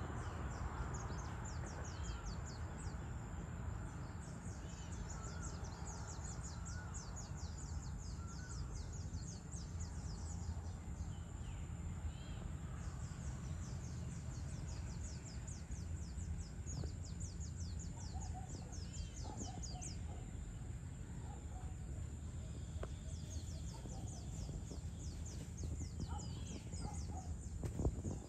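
Outdoor evening ambience: birds give short calls now and then over a dense, fast-pulsing chirr of insects, with a low steady rumble underneath. A sharp knock comes right at the end.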